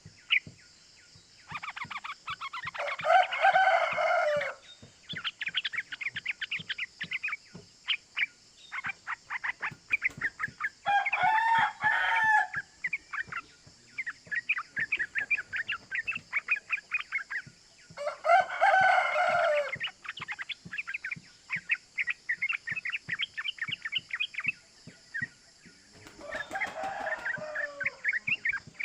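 Yellow-vented bulbul (trucukan) song: long runs of rapid chattering "cuk cuk" notes. Four times the runs break into a louder, fuller bubbling phrase lasting a second or two.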